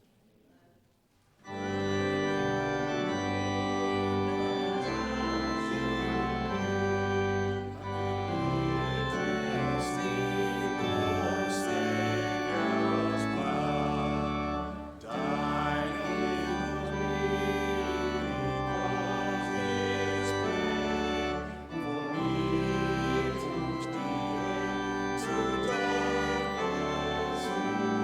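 Organ playing sustained chords in slow changes. It starts about a second and a half in after a near-silent pause, with brief breaks between phrases.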